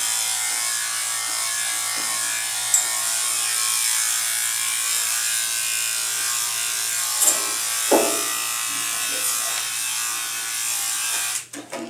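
Electric pet grooming clippers with a guide comb running steadily while clipping a Shih Tzu's leg coat, with a few light clicks. The hum stops abruptly shortly before the end.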